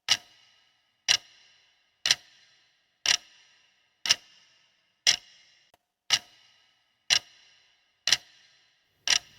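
Countdown timer: a clock ticking sound effect, one sharp tick a second with a short ringing tail, ten ticks in all.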